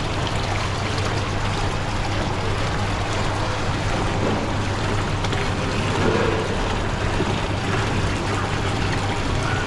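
Steady rush and trickle of water in a fish pond, over a low, even hum.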